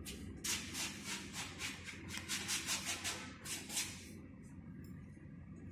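Paintbrush scrubbing oil paint onto a stretched canvas in quick back-and-forth strokes, about five a second, stopping about four seconds in.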